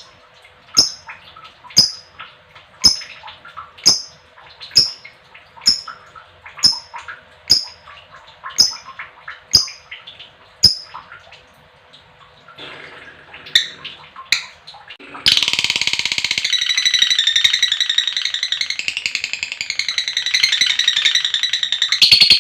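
Female lovebird calling: sharp single chirps about once a second for the first ten seconds or so. Then, about fifteen seconds in, a loud, unbroken, very rapid chattering trill starts: the long 'ngekek' chatter.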